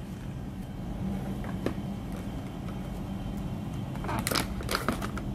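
Foil coffee bag handled and torn or pulled open by hand, with a few light clicks early and a run of crisp crinkling from about four seconds in. A steady low hum runs underneath.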